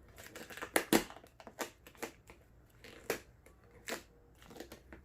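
Vinyl decal sheet and its backing paper crinkling as they are handled and peeled, in about six irregular sharp crackles, the loudest about a second in.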